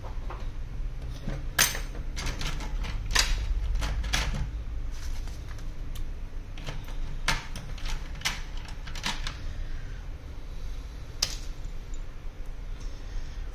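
Irregular sharp clicks and light taps from fingers and a small screwdriver working on an opened iPhone's internals, about a dozen scattered through, over a steady low hum.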